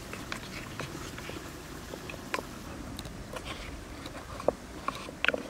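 Wooden spoon stirring chopped garlic in liquid in a small wooden bowl, with scattered light clicks and taps of the spoon against the bowl.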